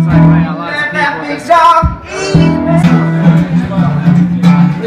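Live solo singer with an acoustic guitar, amplified through the bar's PA: sung lines with some long held notes over strummed chords.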